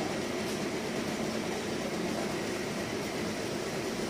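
Steady low background hum with no distinct events.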